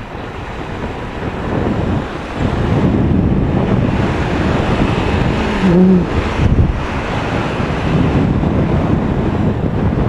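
Wind buffeting the microphone on a moving Yamaha Fazer 250 motorcycle, with the bike's engine running underneath and a gust peaking about six seconds in. The rider is testing it after a chain adjustment and lubrication to hear whether an engine noise is gone.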